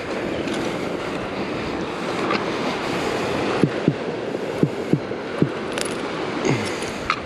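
Ocean surf washing onto the beach with wind buffeting the microphone. From about three and a half seconds in come several short low swooping sounds, each dropping in pitch.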